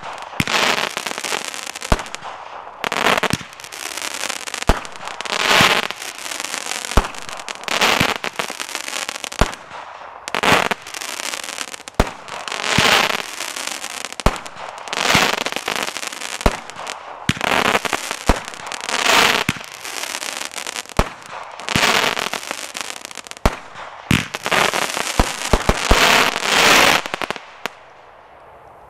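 TNT Fireworks Electro Strike 16-shot cake firing: shot after shot, each a sharp bang followed by about a second of crackling, about one every second and a half. The shots stop about a second before the end.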